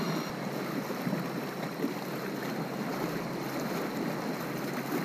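Steady rushing and splashing of water along the hull of a small boat under way.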